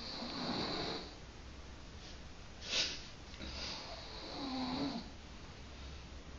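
Slow snoring of a sleeper: two long snoring breaths about three and a half seconds apart. A brief, louder noise comes about halfway between them.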